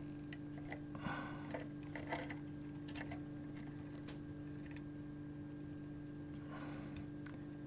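Quiet handling of small parts on a workbench: a few faint scattered clicks and soft rustles over a steady low electrical hum.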